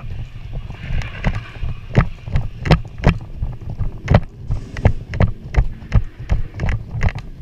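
Footsteps at a brisk walk, about two to three heavy steps a second, with knocks and rattles of carried gear.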